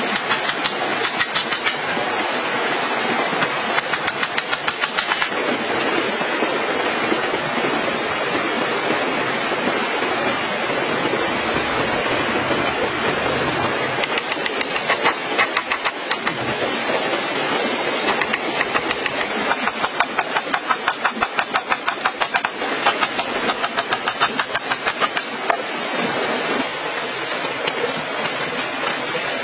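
A small hammer tapping on bamboo in quick runs of sharp knocks, fixing a bamboo crossbar onto split bamboo poles, over the steady rush of a stream.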